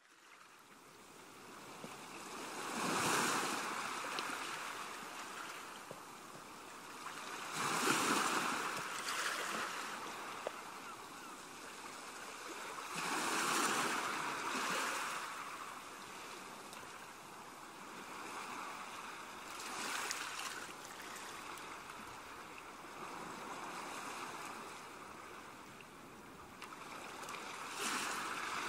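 Ocean waves washing in, the surf swelling and ebbing every five to six seconds.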